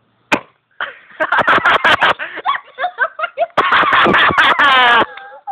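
A sharp smack, then a rapid string of knocks and thumps amid shrieking and laughter, ending in a long high-pitched scream.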